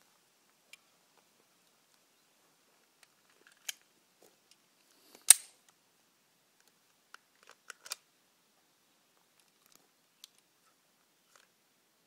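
A SIG Pro 2340 pistol and its magazines being handled: scattered sharp metallic clicks and clacks, with one much louder crack about five seconds in and a quick run of clicks near eight seconds.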